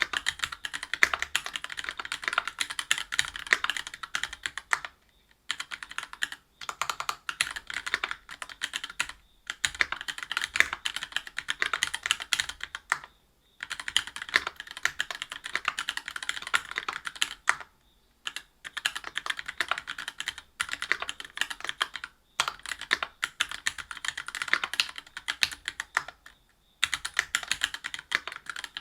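Fast typing on a mechanical keyboard fitted with Gateron Milky Yellow Pro linear switches in a brass plate, under GMK doubleshot keycaps: dense runs of keystroke clacks broken by several short pauses.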